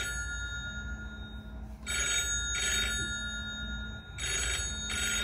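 Telephone ringing in a repeated double ring, two short rings at a time, with the pairs coming about every two seconds.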